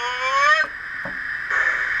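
Sound decoder of an N-scale Union Pacific Big Boy model steam locomotive playing through its small onboard speaker: a steady steam hiss with a pitched tone that rises in pitch and cuts off abruptly under a second in, then the hiss grows louder about one and a half seconds in.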